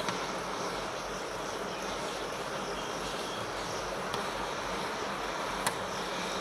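Steady hiss of light rain, a drizzle, with two faint ticks about four and six seconds in.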